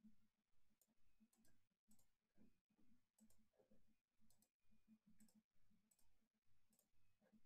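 Faint, fairly regular clicking of a computer mouse and keyboard while text is copied and pasted between a web page and a spreadsheet.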